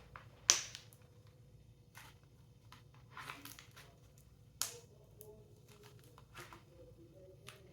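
Hands kneading and squishing slime, with a few sharp pops and clicks, the loudest about half a second in and another near the middle.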